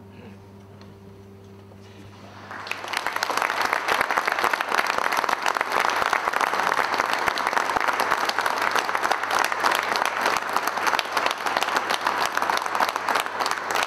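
Audience applauding. The applause breaks out about two and a half seconds in, after the last quiet notes of music, and then carries on as dense, even clapping from many hands.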